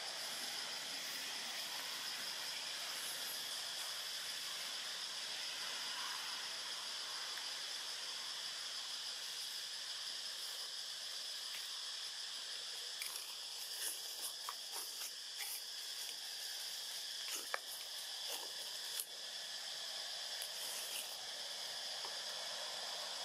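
Steady high-pitched insect drone over a constant outdoor hiss, with a few short clicks and soft rustles partway through.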